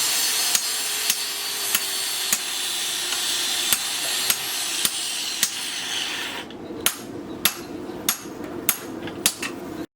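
Regular light hammer taps, about one every half second, over a steady running noise. The background noise drops away about six and a half seconds in, the taps go on and come a little quicker, and the sound cuts off abruptly just before the end.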